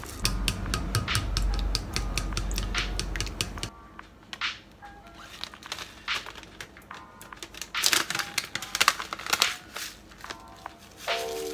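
Chopsticks stirring and clicking against a rice cooker's inner pot, then a furikake pouch crinkling loudly as it is handled and shaken over a bowl, about eight seconds in. Soft background music runs underneath.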